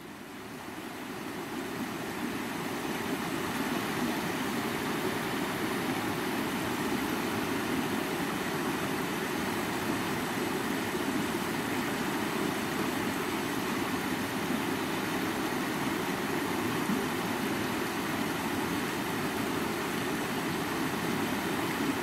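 Steady rushing water, an even noise with no rhythm, fading in over the first few seconds and then holding level.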